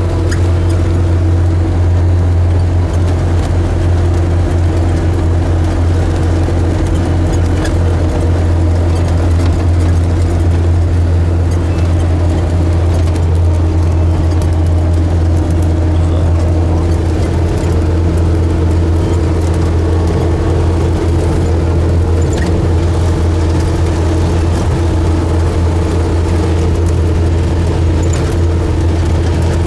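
A vehicle engine's steady low drone, unchanging in pitch.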